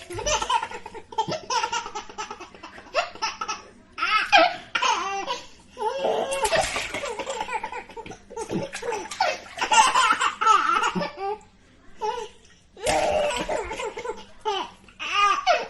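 Baby laughing in repeated bursts of giggles and belly laughs, with a short pause about twelve seconds in.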